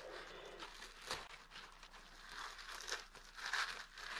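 Faint rustling and crinkling of a hydration pack's fabric and plastic drinking tube as the tube is fed through the shoulder-strap opening, with a light tap about a second in.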